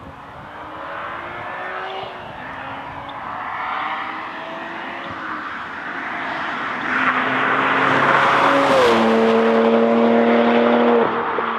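2007 BMW 335i's twin-turbo straight-six with a Magnaflow turbo-back quad-tip exhaust, accelerating with the engine note rising in pitch, dropping back and climbing again as it builds in loudness. It is loudest in the last few seconds, where the note steps down in pitch, as a car going by does.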